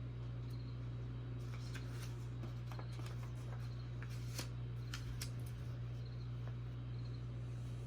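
Light rustling and a scattering of small clicks as robot-kit parts and their packaging are handled, over a steady low hum.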